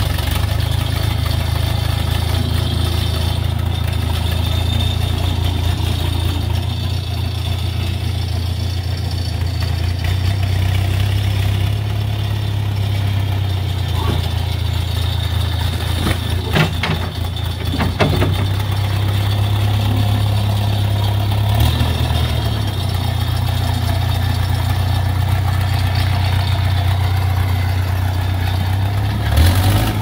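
Case 580 backhoe loader's engine running steadily with a deep hum while it works its front bucket through wet cob mix. There are a few clunks about halfway through.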